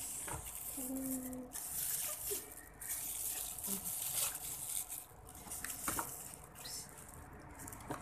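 Plastic bag and cardboard food box rustling and crinkling as they are handled, in stretches with short pauses between them.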